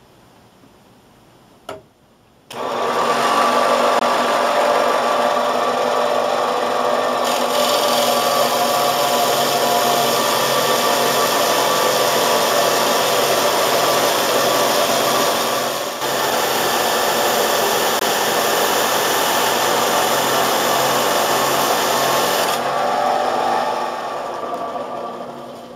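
Studio Pro Precision 2000 band saw starts up about two and a half seconds in and runs steadily, its wet diamond blade grinding through a taped stack of glass pieces with a harsher hiss from about seven seconds in. The hiss drops away and the sound eases off near the end as the cut finishes.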